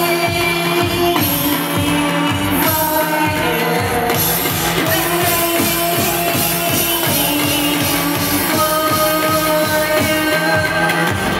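Live band music: a woman singing over a steady electronic beat with held melodic notes.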